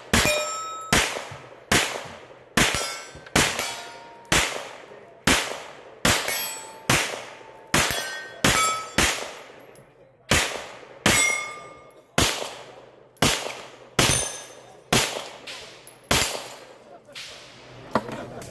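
Pistol shots fired in a steady string, about one and a half to two a second with one short pause midway, each followed by the ringing clang of steel targets being hit.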